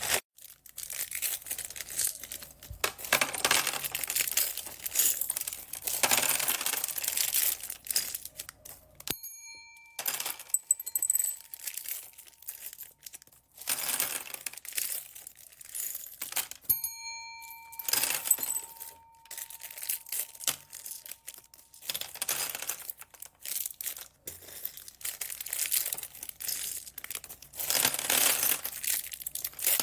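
Plastic bags crinkling in repeated bursts as they are handled and opened. A short ringing tone sounds twice, about nine seconds in and again around seventeen seconds.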